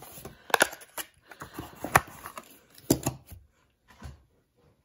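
A few sharp clicks and crackles of a Hot Wheels blister card being handled, its plastic bubble and cardboard backing knocking and crinkling, the last click about three seconds in.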